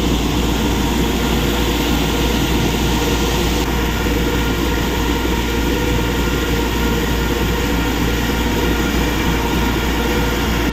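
A mountain stream rushing over rocks close by: a loud, steady, unbroken rush of water.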